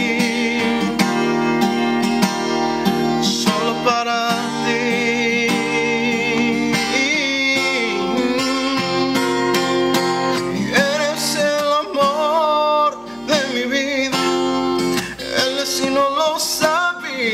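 Steel-string cutaway acoustic guitar, capoed, strummed in a slow ballad, with a man's wordless singing gliding and wavering over the chords, mostly in the second half.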